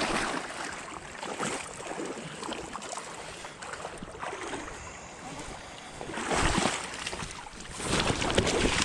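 River water sloshing and splashing, with two louder bouts of splashing, about six and a half and eight seconds in, as a hooked coho salmon thrashes at the surface in the shallows.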